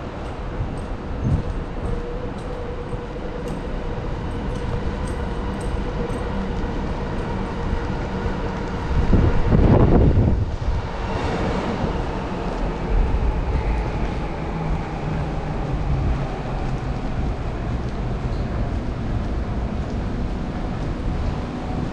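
Steady city street rumble with a faint held whine, and one louder swell as something passes close about nine to ten seconds in.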